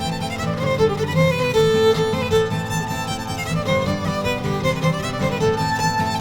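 Background music: a melody line over a steady, repeating low accompaniment.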